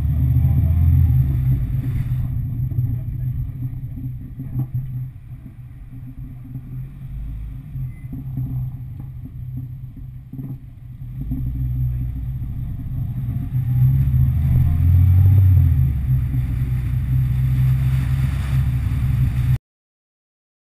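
A car's engine and a low rumble of wind and road noise, picked up by a camera outside the car as it drives off. It quietens while the car slows in the middle, grows louder as it accelerates again, and cuts off suddenly near the end.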